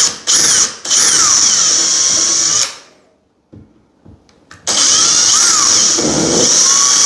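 Power drill boring screw holes for a towel rail bracket through plasterboard into the timber behind: a few short trigger blips, a run of about two seconds, a pause, then a second longer run for the next hole.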